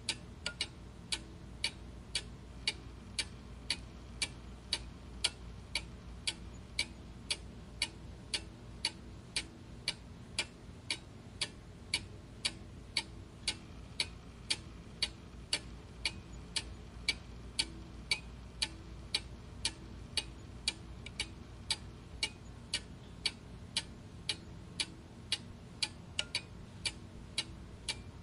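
A clock ticking steadily and evenly, about two ticks a second, over a faint low background hum.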